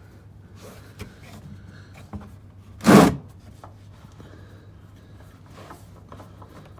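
A loosened K&N oil filter being unscrewed by hand: quiet rubbing and light clicks, with one brief loud noise about three seconds in.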